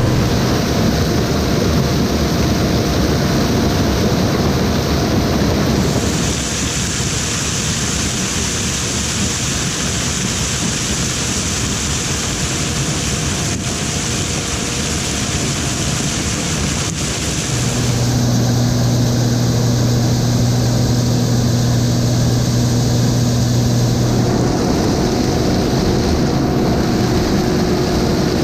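Combine harvester running while harvesting corn, a steady mechanical drone with a constant hum. The sound changes abruptly about 6, 18 and 24 seconds in, with a strong high hiss over the middle stretch and a heavier low hum after it.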